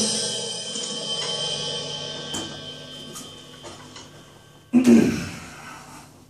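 The last cymbal crash of a Roland V-Drums electronic drum kit ringing out and slowly fading after the drumming stops. Nearly five seconds in, a sudden loud thump rings out again briefly.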